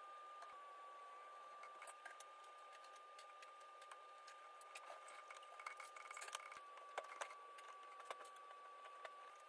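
Near silence: a faint steady high whine, with scattered small clicks and ticks of metal lock hardware being handled during installation.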